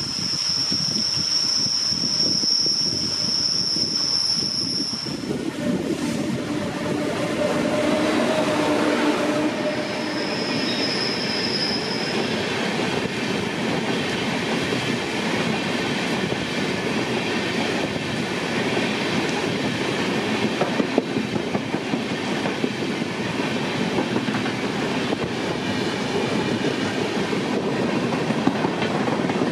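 Express train hauled by a WAP-7 electric locomotive running past at speed: continuous rumble and clatter of steel wheels on the rails. A high steady squeal is heard for the first few seconds and again briefly about ten seconds in.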